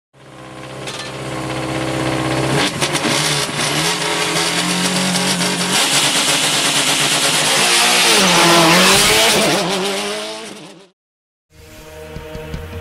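A rally car's engine revving hard, its pitch shifting up and down as it drives, then fading away about ten seconds in. After a moment of silence, music with a heavy beat starts near the end.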